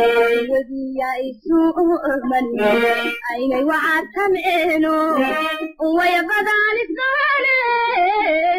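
A high-pitched voice singing a melody in sustained, wavering phrases with two brief breaks, over light instrumental backing.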